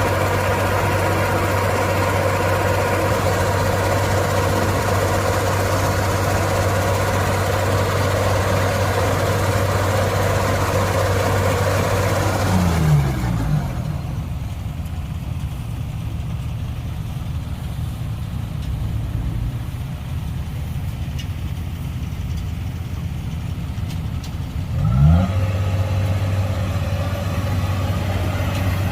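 Kubota track combine harvester's diesel engine running steadily at working speed, throttled down about halfway through to a lower, quieter idle, then revved back up to working speed near the end.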